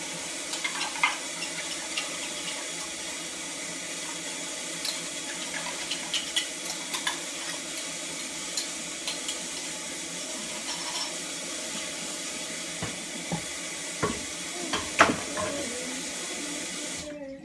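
Kitchen tap running steadily into a sink while a container is rinsed out, with occasional clinks against the sink. The water shuts off near the end.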